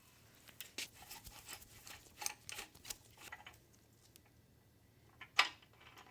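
Irregular metal clicks and scrapes of hand tools and engine parts being handled, with one louder sharp click near the end.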